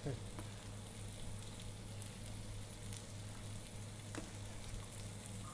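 Garlic frying in oil in a pan, a soft steady sizzle over a faint steady low hum, with a couple of light clicks.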